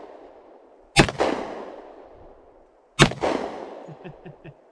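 Two pistol shots from a Glock 40 in 10mm Auto with a 6-inch barrel, about two seconds apart. Each is a sharp crack followed by a long echoing tail.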